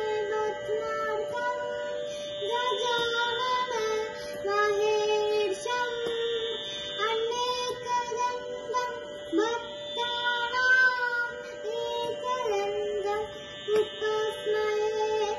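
A young girl singing a devotional bhajan to Ganesha solo, phrase by phrase, over a steady drone tone.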